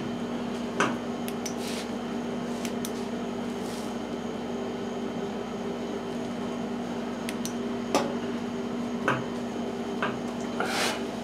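A steady low machine hum, with a few light clicks and knocks from hands handling the push mower's engine parts, and a brief hiss near the end.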